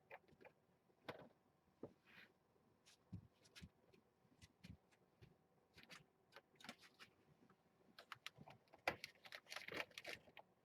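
Faint, scattered small clicks and light knocks, coming thicker about nine seconds in.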